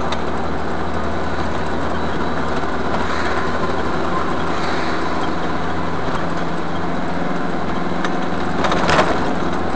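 Truck engine running steadily with road noise heard inside the cab. A short, loud burst of noise comes near the end.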